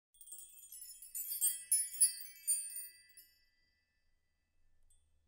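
A bright cascade of high tinkling chimes: many quick struck notes that ring on and fade out about three seconds in.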